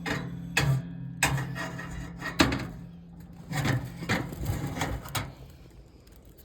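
Irregular knocks and clanks as a toaster oven is being smashed and pulled apart, about eight in the first five seconds, the loudest about two and a half seconds in. A low steady hum sits under the first half and fades out.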